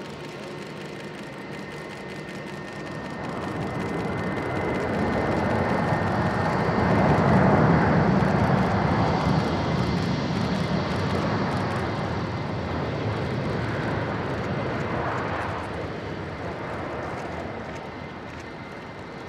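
Jet engine noise from a Boeing 787 Dreamliner on its landing roll, with its Rolls-Royce Trent 1000 engines. The noise swells to a peak about eight seconds in, then fades slowly, with a faint high whine early on.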